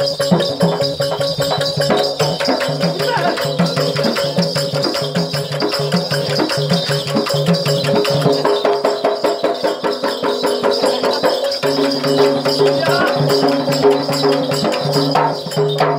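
Live folk music: a hand drum beaten in a fast, even rhythm with jingling rattle-like percussion over steady held notes. About twelve seconds in, the low held notes grow stronger.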